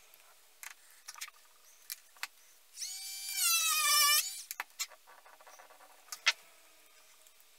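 Photo frame's stand squeaking as it is pressed into place against the frame back: one squeak of about a second and a half that holds its pitch, then slides a little lower before stopping. Light handling clicks around it and one sharp click about six seconds in.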